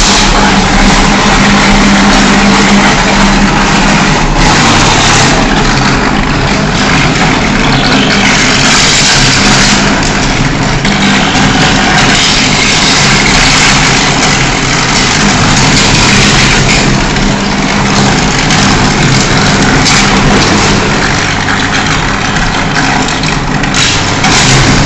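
5-ton electric arc furnace running under power: a loud, steady crackling roar from the arc, with a steady electrical hum underneath.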